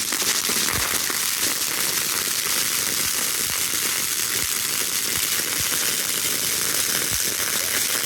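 A lit firework spewing sparks, with a steady, loud hiss and dense crackling throughout.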